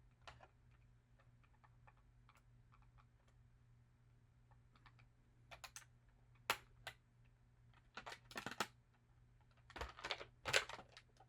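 Plastic packaging being handled and pulled apart as a toy is freed from it: scattered sharp clicks and short crackles, sparse at first, coming more often from about five seconds in, with the loudest cluster near the end.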